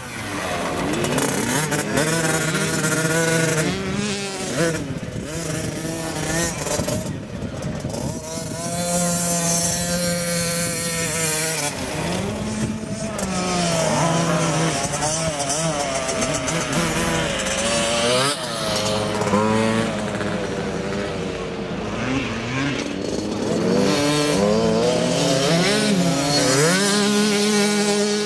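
Engine of a small two-stroke motocross bike revving up and down as it is ridden, its pitch rising and falling with the throttle many times over.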